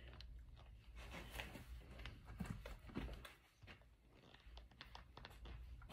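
Faint handling noise from the phone camera being repositioned: soft rustling and scattered light clicks, with a couple of dull thumps around the middle.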